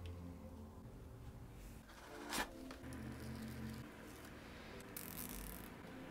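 Faint background music with soft rustling and scraping, including a brief scrape a little past two seconds and a short hiss about five seconds in.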